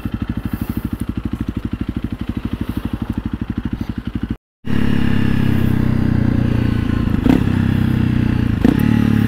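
Honda CRF300L's single-cylinder engine through a Yoshimura RS-4 full exhaust, running with an even low pulse at low revs. After a brief break about four and a half seconds in, it runs at higher revs with a louder, smoother note, and two short clicks sound near the end.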